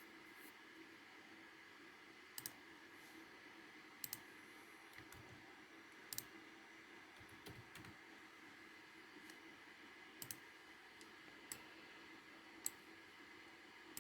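Computer mouse clicking every second or two, several of the clicks coming as quick double-clicks, over a faint steady hiss.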